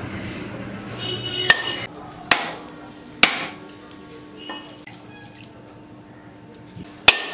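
Whole coconuts being cracked open with sharp blows: three hard knocks in the first few seconds and another near the end, with lighter taps between.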